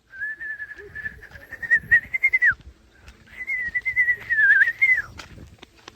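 A person whistling two long, nearly level notes, each ending in a quick drop in pitch, to call a dog.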